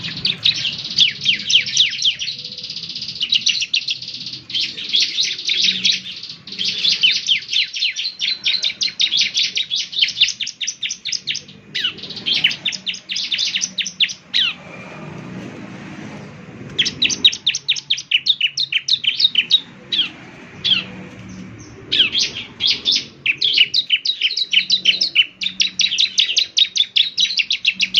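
Bar-winged prinia (ciblek) singing vigorously: fast chattering bursts of rapid high, sharp notes, one after another, with a pause of about two seconds around the middle.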